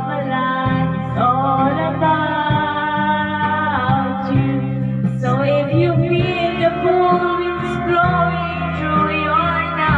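Karaoke singing: a voice sung into a microphone and played through the karaoke amplifier over a backing track, with long held notes that slide between pitches.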